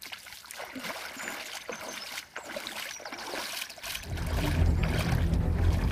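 Water splashing and sloshing with small scattered clicks, then about four seconds in a loud, steady low rumble sets in.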